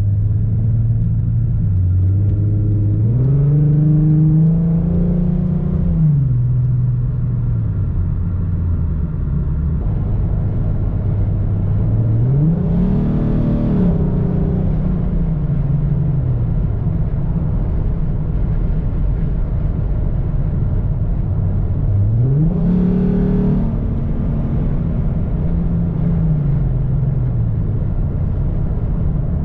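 2015 Ford Mustang 3.7-litre V6 with long-tube headers, an X-pipe and Magnaflow mufflers, its revs climbing quickly three times and falling back more slowly in between. This is the rev range where the owner reports a hesitation or hiccup near 3,000 rpm.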